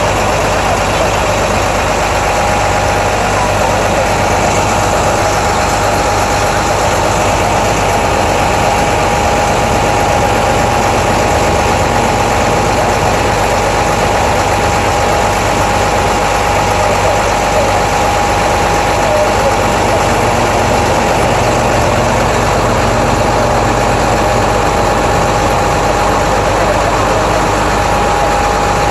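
Large party bus's engine idling steadily close by, with a steady whine that joins about two seconds in.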